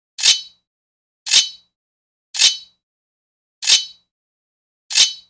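Sword blade scraping on metal: five short scrapes about a second apart, each a quick hiss with a metallic ring, with silence between.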